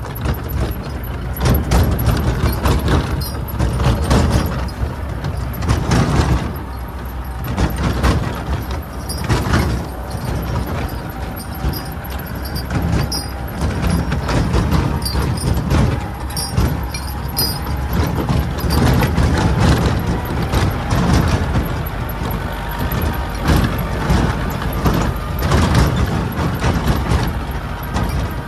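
T-40AM tractor's air-cooled four-cylinder diesel running steadily as the tractor drives along, with frequent rattling and clattering from the tractor and towed trailer jolting over rough ground.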